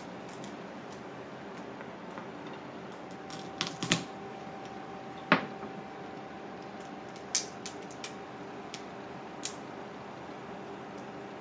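Cooked mud crab legs being cracked and their shell picked apart by hand: scattered sharp cracks and clicks, the loudest about five seconds in, over a steady background hum.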